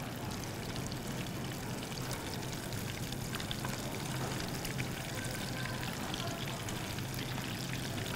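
Panko-breaded goat cheese logs deep-frying in a saucepan of hot oil: a steady sizzle with fine crackling.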